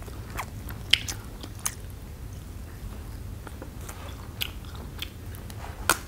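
Close-up mouth sounds of people biting and chewing roasted meat, with a few scattered sharp crunches and clicks over a low steady hum.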